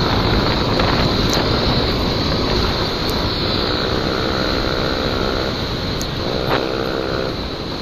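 Yamaha NMAX scooter's single-cylinder engine running at road speed, mixed with the rush of wind on the camera microphone. A steadier pitched drone rises over the rumble for a few seconds in the middle and again briefly near the end.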